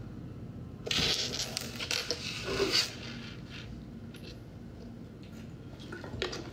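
Denim jacket sleeve rustling and scraping against the phone's microphone for about two seconds, starting about a second in, over a low steady hum. A few faint scratches follow near the end.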